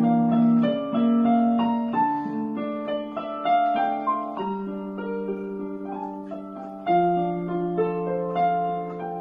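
Electronic keyboard played with a piano sound: a melody over chords and long held low notes.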